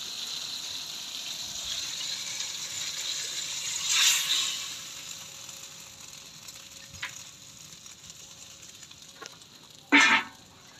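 Egg and tomato sizzling in a wok over a wood fire: a steady hiss that swells about four seconds in, then slowly fades. A couple of faint ticks follow, then one short loud noise near the end.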